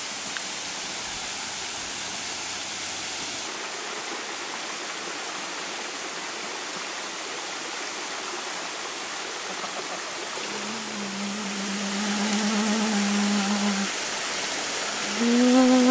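Small waterfall spilling and dripping over a moss-covered rock face, a steady rushing hiss. About two-thirds of the way in, a wooden end-blown flute comes in with long held low notes over the water.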